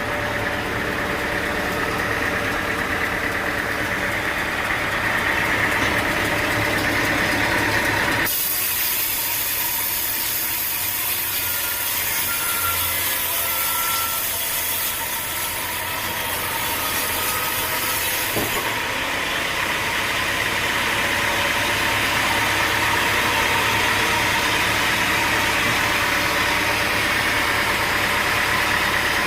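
Sawmill machinery running steadily: an engine with saw noise. The sound changes abruptly about eight seconds in to a hissier, lighter-bottomed sound, then switches back about ten seconds later.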